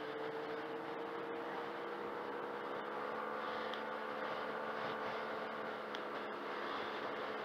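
Yamaha TMAX 500 maxiscooter's parallel-twin engine running at a steady pitch while riding, mixed with road and wind noise.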